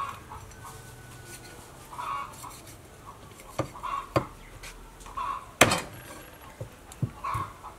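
A large kitchen knife chopping through a raw whole chicken onto a thick wooden chopping board: a run of sharp knocks starting about halfway through, the loudest near the middle.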